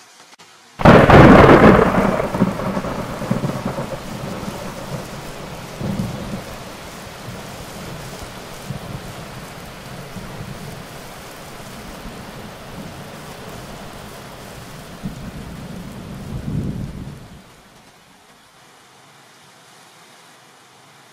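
Thunder: a sudden loud clap about a second in, followed by a long rolling rumble that swells twice more before dying away after about sixteen seconds.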